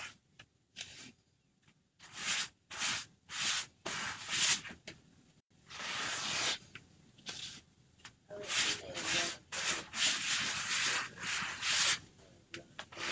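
Repeated rubbing strokes across a Chalk Couture transfer, a series of short swipes about half a second each, coming in runs with brief pauses between.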